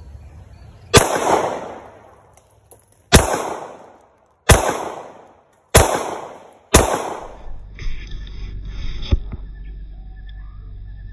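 Five handgun shots fired at an uneven pace over about six seconds, each a sharp crack with a short echoing tail. After them comes a steady low rumble.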